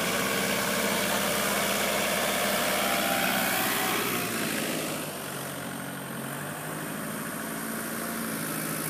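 Kubota L5018 tractor's diesel engine running steadily, growing somewhat quieter about five seconds in.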